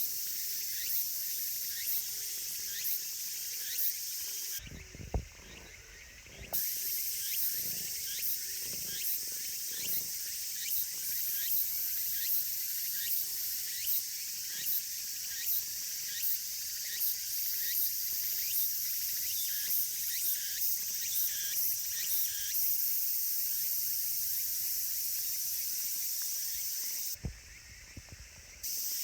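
A steady insect chorus: a high, shrill buzz pulsing regularly a little faster than once a second. It drops out briefly twice, with a few soft low thumps in those gaps.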